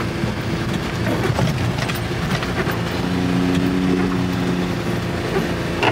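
4x4 kei mini truck driving steadily through snow on the road, its small engine running under load with a steady hum, over rumbling road and tyre noise.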